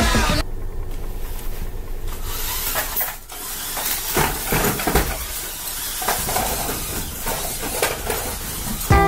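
A VEX competition robot driving and working on the field: a steady noisy hiss with several sharp knocks and clatters from about three seconds in.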